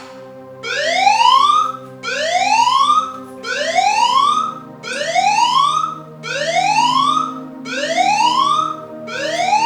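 Anti-theft phone app's siren alarm, 'Don't Touch My Phone', whooping over and over: a tone sweeps upward, cuts off and starts again about every one and a half seconds, about seven times, over a steady low hum.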